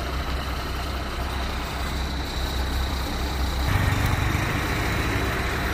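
Heavy vehicle engine idling steadily, growing louder a little past halfway through.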